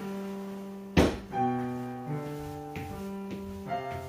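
Piano playing a slow line of held notes, changing every half second or so, with one sharp knock about a second in.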